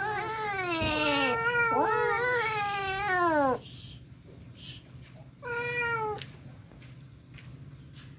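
Cats yowling in a hostile standoff between a big black cat and a kitten that resists it: long wavering howls, at times two overlapping, for the first three and a half seconds, then one shorter howl about five and a half seconds in.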